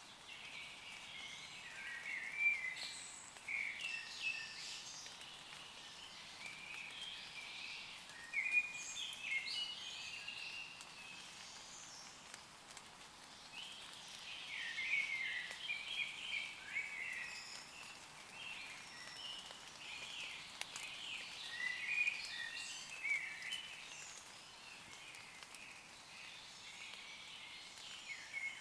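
Woodland birds singing, several chirping phrases overlapping in busy spells with short lulls, over a faint steady hiss of light rain on leaves.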